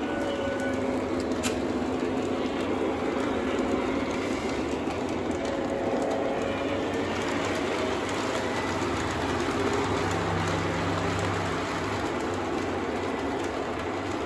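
Several Lionel O-gauge model trains running at once on three-rail metal track: a steady rumble of wheels on rails with a motor hum under it.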